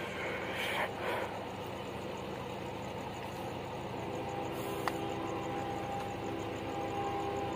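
A steady engine rumble, with a few faint steady tones coming in about four seconds in.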